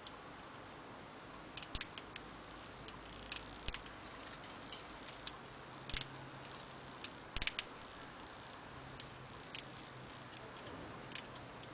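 Light, irregular metallic clicks and ticks, some in quick clusters, from a paper clip being worked inside a gate latch's wafer lock as someone tries to pick it.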